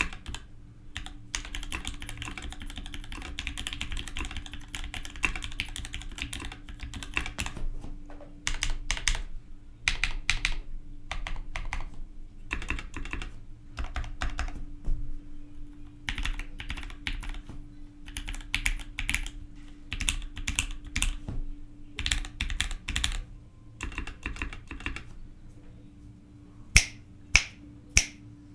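Typing on a Matrix 2.0 mechanical keyboard with lubed Gateron Giant switches and Enjoy PBT keycaps: fast continuous keystrokes at first, then bursts of typing with short pauses. Near the end come three louder single clicks about half a second apart.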